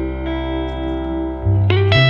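Background music: held guitar chords with effects, a new, louder chord coming in about one and a half seconds in.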